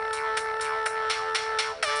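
Motorola RAZR V8 electronic ringtone: a held synth note over an even beat of about six clicks a second, breaking off briefly near the end and changing to a new note.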